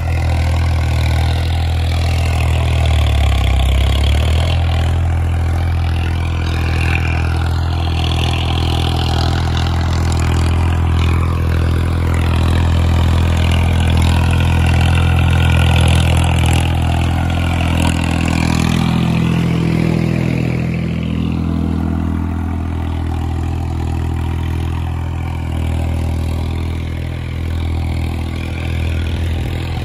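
Swaraj tractor's diesel engine running steadily under load while pulling a cultivator through tilled soil. Its note shifts a little in pitch now and then.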